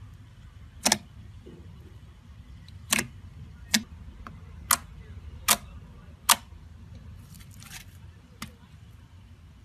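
Thick white slime being pressed and folded by fingers, giving sharp clicks and pops, about seven spread unevenly, with a brief soft crackle near the end, over a low steady hum.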